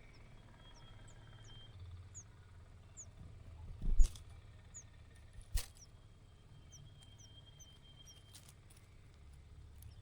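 Faint, short, high cheeps from nestling birds, each falling in pitch, repeated at irregular intervals. A knock about four seconds in and another about five and a half seconds in are louder than the cheeps.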